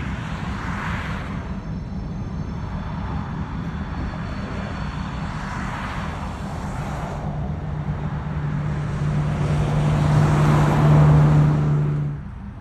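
Diesel locomotive running while switching cars in a rail yard: a steady low engine hum that grows louder over the last few seconds, with a rushing noise that swells and fades three times. It cuts off abruptly shortly before the end.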